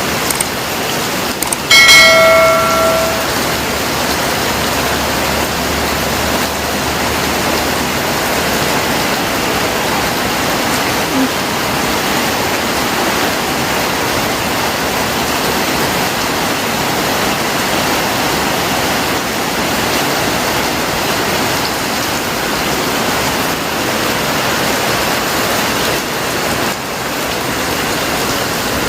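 Steady rain, an even hiss that runs on unchanged. About two seconds in, a single bell-like metallic ring sounds out over it and dies away within about a second.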